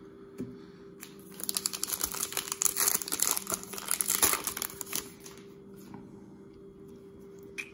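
Foil wrapper of a Topps Gypsy Queen trading-card pack crinkling as it is opened and the cards are pulled out. A dense crackle starts about a second in and lasts around four seconds, then quieter handling of the cards.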